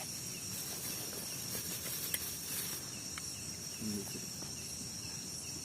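Steady, high-pitched chirring of night insects such as crickets, with a single small click a little after two seconds and a brief low murmur of a voice near the end.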